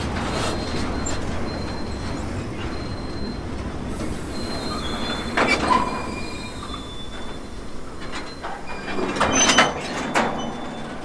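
Railway oil tank wagons rolling slowly past, with a steady rumble of steel wheels on rail and high-pitched wheel squeal that comes and goes. The squeal is loudest about halfway through and again near the end.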